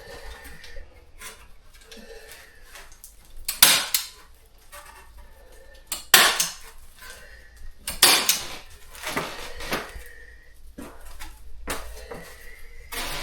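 Scattered sharp knocks and clatters, about six of them a second or two apart, from work on the wooden floor.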